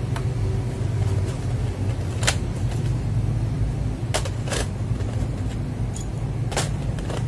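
A few separate keystrokes on a mechanical keyboard with Kailh Box Brown tactile switches, about six light clicks spread irregularly, over a steady low rumble.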